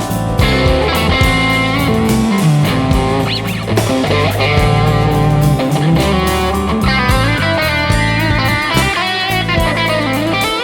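Background music: electric guitar over bass and drums, with a steady beat.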